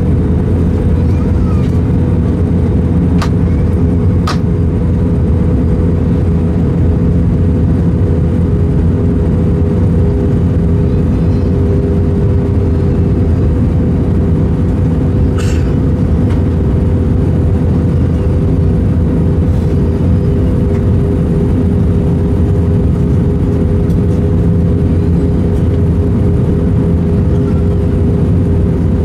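Airbus A320 cabin noise: a steady, loud drone of the jet engines and airflow, with a low rumble and a constant hum. A couple of faint clicks come about three and four seconds in.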